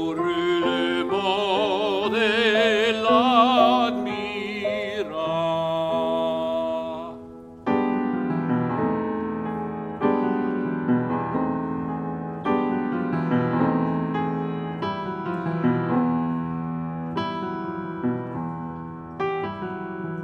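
Baritone voice singing with a wide vibrato over piano accompaniment. The voice stops about seven seconds in, and the piano plays on alone, striking a new chord every two seconds or so.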